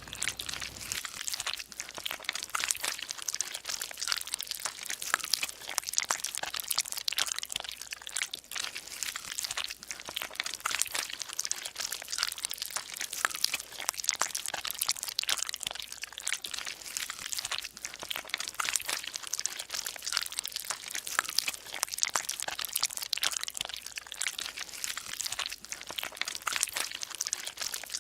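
Dense, continuous crackling: a steady stream of many small clicks and crunches, mostly high-pitched.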